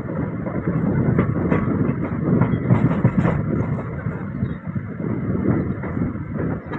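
Running noise of a passenger train heard from an open coach door: a steady rumble and rattle of the moving coach, with scattered clicks of the wheels over the rails.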